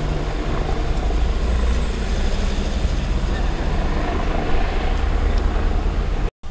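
Helicopter overhead: a steady, loud low rotor and engine drone. It cuts off abruptly just before the end.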